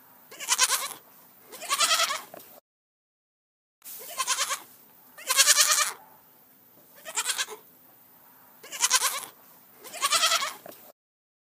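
A goat bleating over and over: about seven short, quavering calls, a second or so apart.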